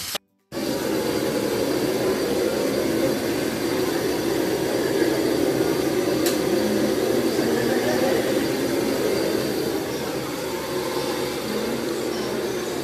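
Heat gun blowing a steady rushing blast of hot air up at PVC stretch-ceiling film to soften it so it can be stretched into place. The noise starts a moment in and stays even throughout.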